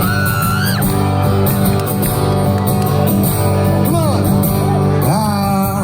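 Live rock band playing, with guitar and voices singing, including a long held note at the start and another about five seconds in.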